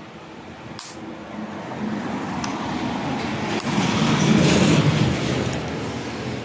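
A road vehicle passing, its low rumble swelling to a peak about four seconds in and then fading, with a few sharp clicks along the way.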